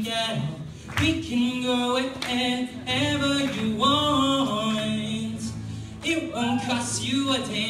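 A man singing a pop song solo while strumming an acoustic guitar, heard live in a hall.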